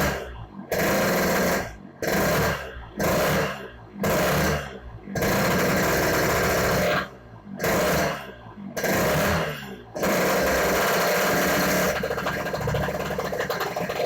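Yamaha RX-King 135cc single-cylinder two-stroke engine being revved: sharp throttle blips about once a second, a longer rev about five seconds in, two more blips, then revs held up from about ten seconds in. The exhaust note is raspy ("ngorok") yet crisp ("garing").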